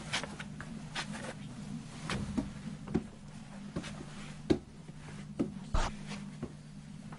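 Scattered soft clicks and taps in a small room over a steady low hum, with a louder click a little past the middle and a dull thump about three-quarters of the way through.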